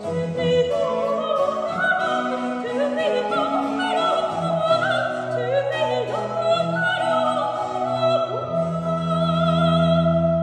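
A woman sings a French Baroque cantata air in operatic style, accompanied by flute, harpsichord and cello. The piece closes on a long held final chord near the end.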